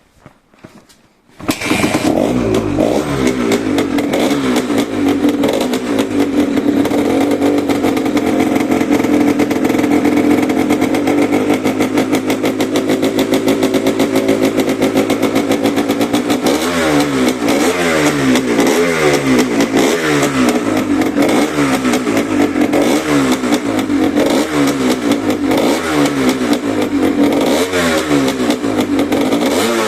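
Suzuki RA125's two-stroke single-cylinder engine, breathing through a stock Suzuki Gamma 250 silencer, starts about a second and a half in and runs steadily. About halfway through, the throttle is blipped over and over, the revs rising and dropping back about once a second.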